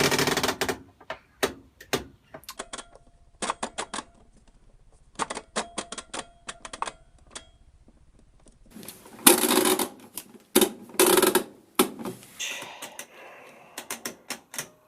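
Mechanical programme timer dials of old washing machines being turned by hand: runs of quick ratcheting clicks as each dial steps through its positions, broken by a few louder clacks.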